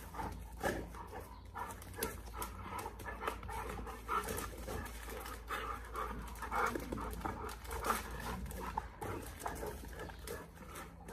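Large dogs panting hard while they jump up begging for food held over them, with scattered short clicks and scuffs.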